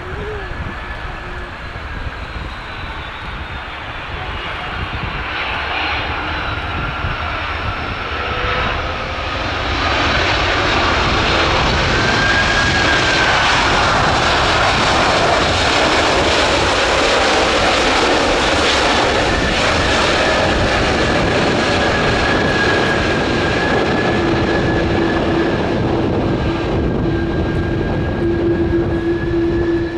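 Airbus A300-608ST Beluga's two General Electric CF6 turbofan engines running as the freighter rolls out along the runway after touchdown: a steady jet roar with a high whine. It grows louder about ten seconds in as the aircraft passes close by.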